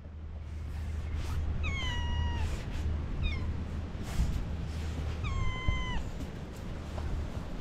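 Stray cat meowing: two long, high meows, each starting high, dropping and then held, with a short call between them, over a steady low rumble.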